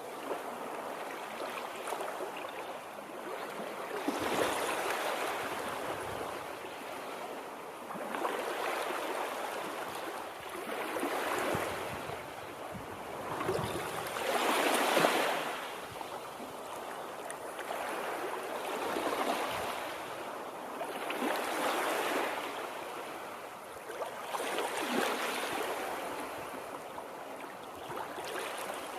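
Water rushing continuously, swelling louder and easing back every few seconds.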